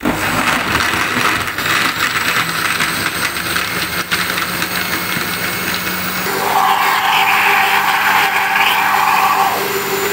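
Electric countertop blender switched on abruptly, its motor running at full speed as it chops ice and fresh strawberries in milk. About six seconds in, the sound turns louder and steadier with a higher whine as the mix blends smooth.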